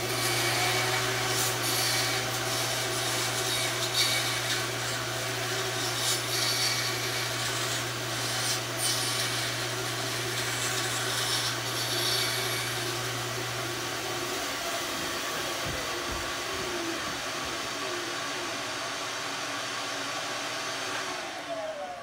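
Mini tabletop bandsaw running steadily, with a sawing, rubbing sound. Its low motor hum drops out about two-thirds of the way through.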